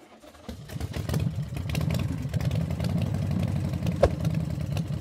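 Truck engine sound starting up and settling into a steady, pulsing idle rumble, with a single sharp click about four seconds in.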